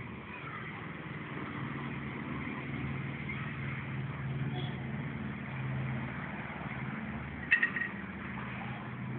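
Steady low hum of road traffic, with a short, sharp high-pitched chirp about seven and a half seconds in.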